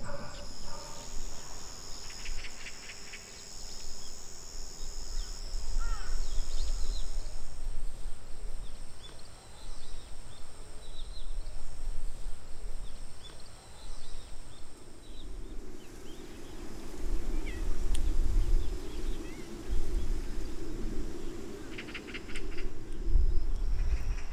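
Outdoor garden ambience: insects trilling steadily, with short pulsed chirps now and then and a few brief bird calls over a low rumble.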